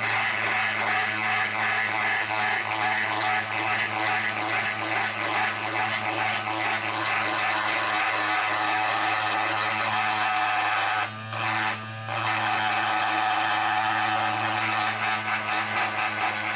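A small electric power tool runs steadily with a buzz, cutting out briefly twice about two-thirds of the way through.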